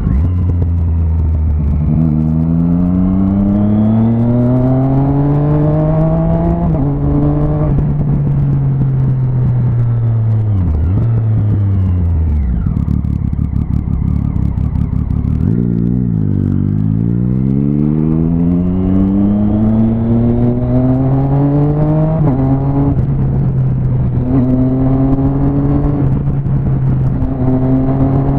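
Motorcycle engine heard from the rider's seat, pulling up through the gears with its note rising and dipping at each shift. It then winds down to a low, near-idle note while stopped in traffic. About sixteen seconds in it accelerates away again, and it settles into a steady cruise near the end.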